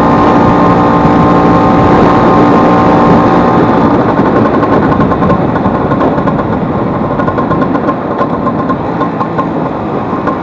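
Vespa 150's single-cylinder two-stroke engine running steadily on the road. After about four seconds its note fades into a rushing noise and the level slowly drops as the scooter eases off. This is the rebuilt engine with its broken elastic pinion replaced, running smoothly.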